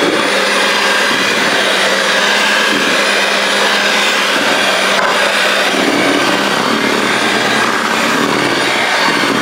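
Electric hand mixer running steadily, its beaters whipping mashed potatoes in a stainless steel bowl.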